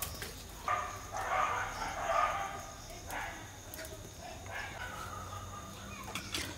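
Faint animal calls that rise and fall in pitch, over a steady low hum.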